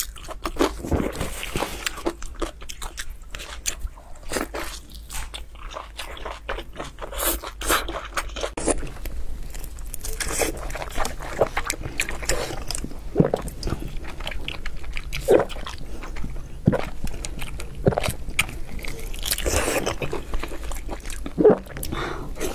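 Close-miked eating sounds: biting, wet chewing and smacking on soft, sauce-coated braised pig trotter and offal, with many short sharp crunching and clicking bites.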